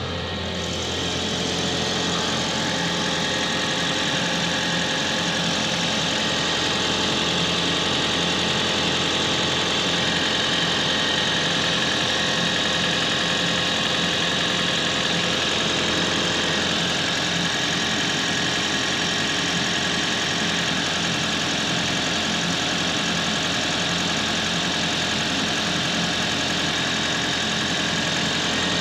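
Toyota Prius petrol engine running steadily while cold, with a flapping rattle ('bata-bata'), the odd noise the owner finds this engine makes in cold weather.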